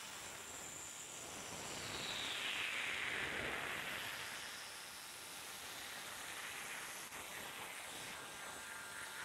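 Milling machine's end mill cutting the top face of an intake manifold, heard faintly as a steady hiss. A falling whine swells and fades about two to four seconds in.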